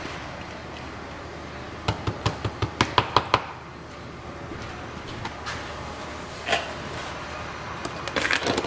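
Kitchenware knocking: a quick run of about ten sharp taps, louder toward the end, as the last of the marinade is tapped out of a mixing bowl. There is a single thump later, and near the end a plastic lid clicks onto a food storage container.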